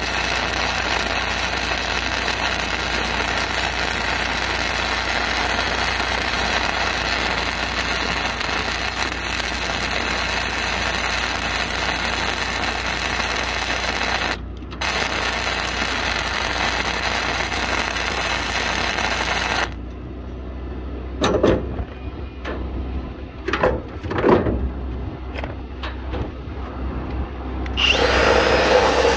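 Self-shielded flux-cored arc welding (NR-212 wire, vertical up): the arc's steady crackling hiss, broken once briefly about halfway through and stopping about two-thirds in. A few knocks follow, then an angle grinder starts near the end and begins grinding the weld.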